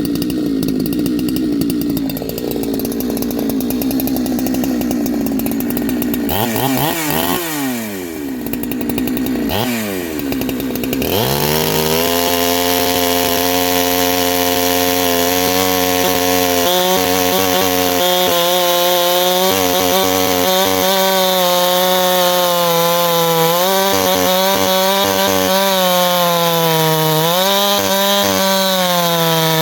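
Ported big-bore two-stroke chainsaw running flat out, with a few quick revs up and down about a quarter of the way in, then held at a lower steady pitch under load as it cuts into wood, dipping slightly now and then.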